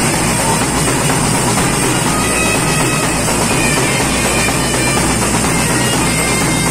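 A small festival band playing loudly: clarinets, one through a microphone, over snare drums and a bass drum.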